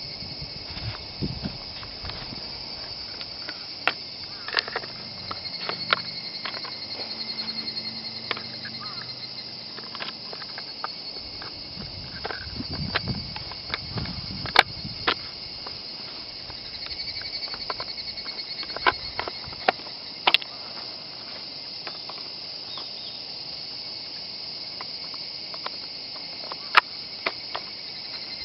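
Sharp clicks and knocks at irregular intervals as the parts of a WE G39C gas blowback airsoft rifle are handled and fitted into the receiver by hand. Underneath, insects trill steadily.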